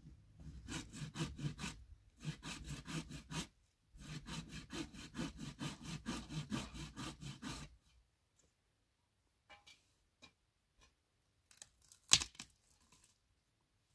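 Quick rhythmic scraping strokes, about five a second, in three runs with short pauses, like a blade or tool working back and forth on wood. After they stop come a few light clicks and one sharp knock.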